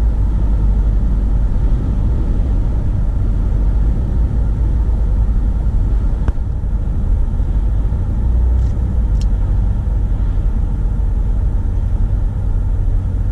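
Steady low rumble of a car driving along a highway, heard inside the cabin: tyre and engine noise, with a faint click about six seconds in.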